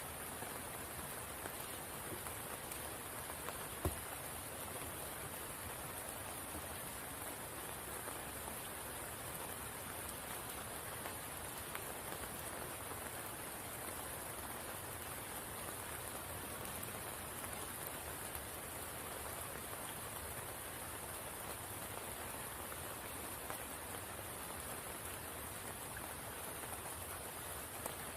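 Steady rain falling on a spring pool, an even hiss, with one sharp tap about four seconds in.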